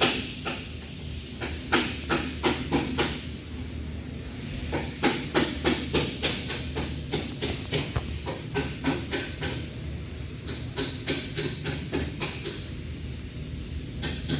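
Repeated sharp metallic knocks and clicks, irregular at first and then about three a second, over a steady low hum.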